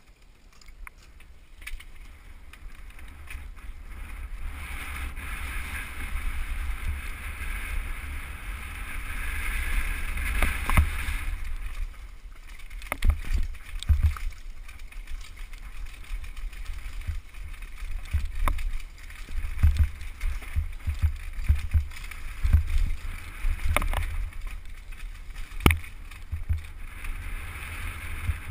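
Downhill mountain bike descending a dirt trail: steady wind buffeting and rumble from the tyres, growing over the first few seconds as the bike gathers speed, with frequent sharp knocks and rattles as it hits bumps and roots.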